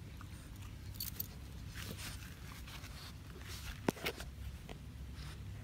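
English bulldog rustling in the grass and chewing on bits of tree bark: scattered short crackles and scuffs, with a sharp click just before four seconds in. A steady low hum runs underneath.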